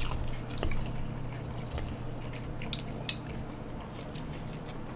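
Wooden chopsticks giving a few light clicks against a plate and bowl as food is picked up, with soft squishy eating sounds between, over a low steady hum.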